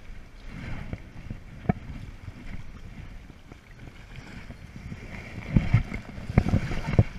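A hooked trout thrashing and splashing at the surface of a stream while being played toward the landing net, in irregular splashes that are heaviest near the end.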